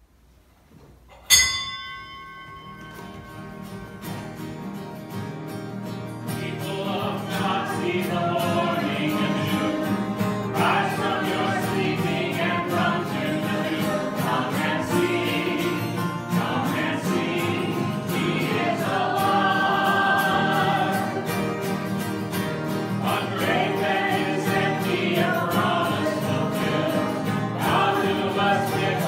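A hymn sung by a choir with instrumental accompaniment. It opens with a sharp ringing note about a second in, then swells over the next few seconds and carries on at a steady level.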